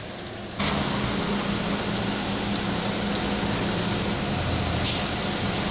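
Single-deck bus engine running with a steady hum as the bus pulls in right alongside, loud and close. The noise steps up suddenly just after the start, and a brief sharp sound comes about five seconds in.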